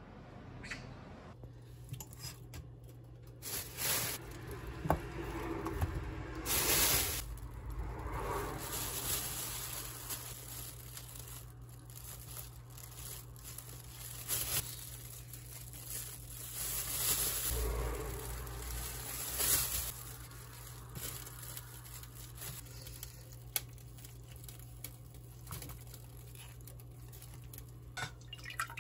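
Rustling, crinkling handling noises and a few light clicks as ingredients are piled into a large stainless steel pot and stirred with chopsticks, with swells of noise every few seconds over a steady low hum.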